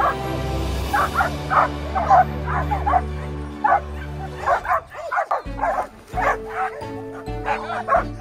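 Dogs barking, many short barks in quick, irregular succession, over background music with long held notes that drops out briefly around the middle.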